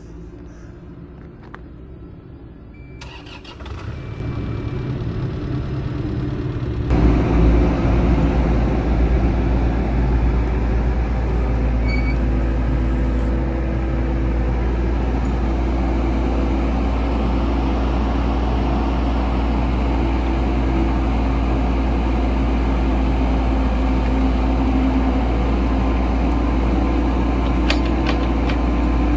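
Caterpillar mini excavator's diesel engine running: faint for the first few seconds, it comes up about four seconds in and gets much louder at about seven seconds, then runs steadily as the machine digs.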